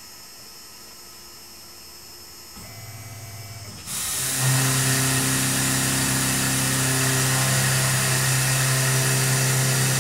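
Tormach PCNC 1100 CNC mill beginning a roughing cut in 4140 steel with a 3/8-inch four-flute carbide end mill. A low steady machine hum builds about two and a half seconds in, then about four seconds in the sound jumps to a loud, steady hiss and hum as the cut runs on.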